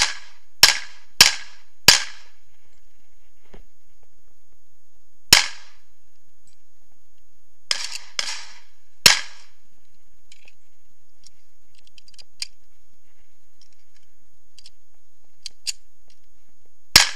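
Gunshots from a Girsan .45 ACP pistol: a quick run of about four shots in the first two seconds, then single shots with pauses between, two of them quieter, and another shot near the end. Light handling clicks sound in the gaps.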